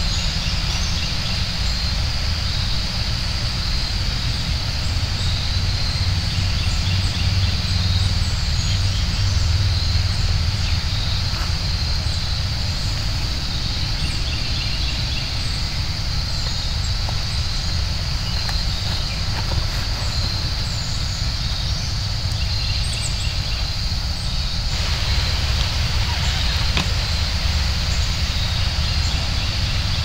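Outdoor ambience: a steady low rumble under a constant high-pitched hiss, with scattered faint chirps.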